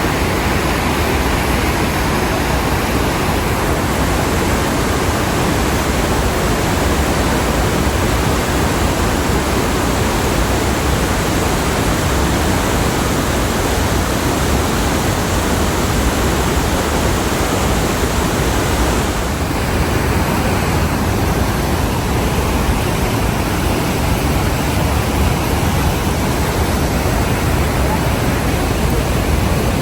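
Water of the Iguazu waterfalls pouring, heard close by as a loud, steady, even rush of falling water.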